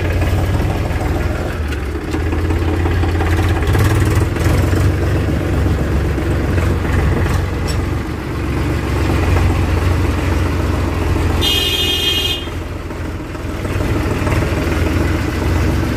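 Powertrac Euro 50 tractor's diesel engine running steadily as the tractor drives along. A horn sounds once for about a second, roughly three quarters of the way through.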